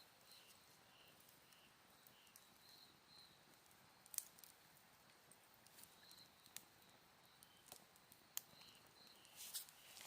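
Faint campfire crackling, with a few sharp wood pops, the loudest about four and eight seconds in. Behind it, autumn insects chirp in short high chirps, repeated on and off.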